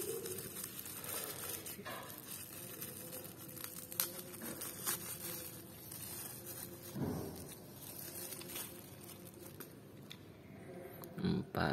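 Black plastic bubble wrap crinkling and crackling in the hands as a die-cast toy car is unwrapped from it, with scattered small clicks.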